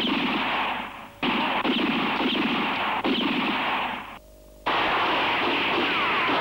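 Dubbed gunfire sound effect: a dense, continuous volley of shots in three stretches, broken by two short silences about a second and about four seconds in, each stretch starting abruptly.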